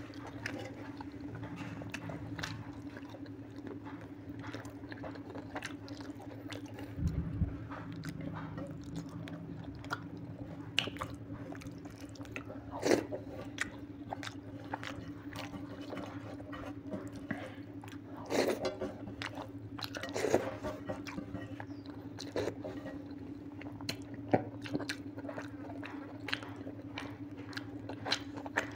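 Close-up mukbang eating sounds: a man chewing mouthfuls of mutton curry and rice with wet smacks and clicks, while his fingers gather rice from a steel plate. A steady low hum runs underneath, and there is a dull thump about seven seconds in.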